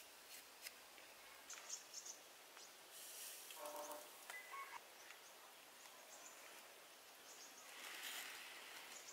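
Near silence: faint outdoor ambience with soft rustling and small clicks as food and leaves are handled on a woven tray, and a brief bird call near the middle.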